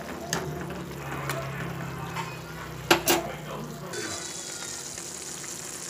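A steel spoon clinks and scrapes against the cooking pan as the noodles are stirred, with two sharp clinks about three seconds in. From about four seconds in, Maggi noodles simmer in the pan with a steady bubbling hiss.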